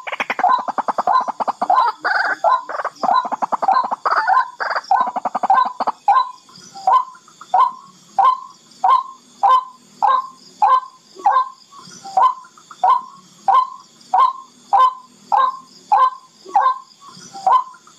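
Barred rail (tikling) calling: for about the first six seconds a dense, rapid rattle of harsh notes, then a steady series of short, sharp single notes, a little under two a second.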